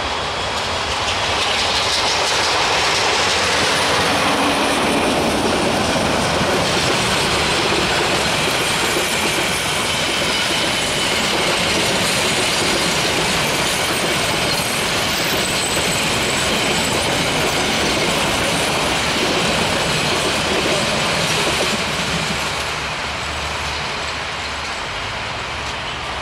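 Metre-gauge passenger train passing behind its GM-EMD GT18LA-2 diesel locomotive: coach wheels clattering over the rail joints in a steady loud rumble, with a faint high wheel squeal through the middle. The sound eases off near the end as the last coach draws away.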